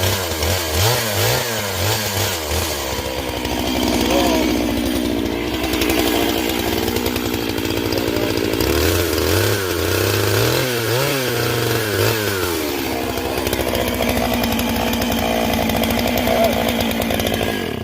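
Gas chainsaw running at high revs while cutting wood, its engine pitch repeatedly dipping and recovering as the chain loads up in the cut, in two stretches.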